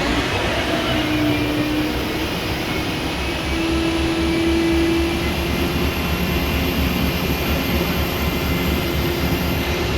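Low, steady rumble of heavy engines, with a humming tone that comes in briefly about a second in and again for a while around four to five seconds.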